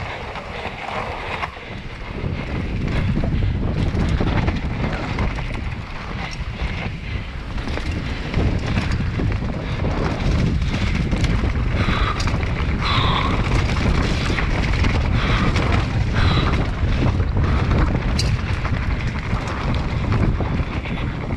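Mountain bike running fast down a dirt forest trail, heard from a camera on the rider or bike: heavy wind rumble on the microphone and tyre noise, with frequent sharp knocks and rattles from the bike.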